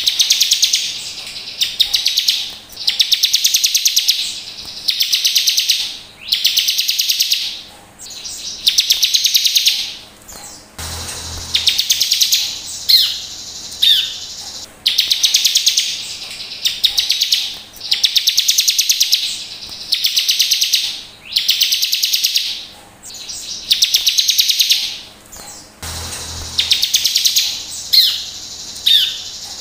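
Bar-winged prinia (ciblek) singing: a high, rapid trill lasting about a second, repeated roughly every two seconds, with a few short, sharp down-slurred notes between some of the trills.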